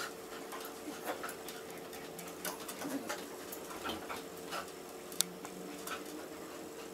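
A labradoodle and a basset hound play-fighting on a bed: low grumbling dog vocalisations with scuffling of paws and bedding and scattered short clicks, the sharpest about five seconds in, over the steady hum of a window fan.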